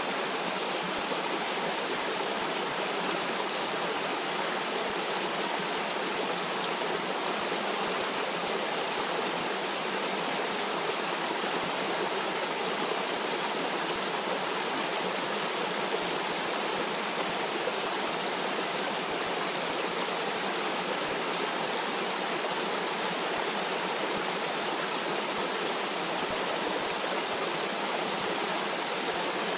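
A stream of water flowing and rushing steadily, with no change in level.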